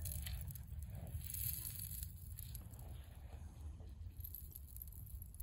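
Hands scraping and digging in sand, a soft, irregular crackly rustle, fading somewhat after about two seconds, over a steady low rumble.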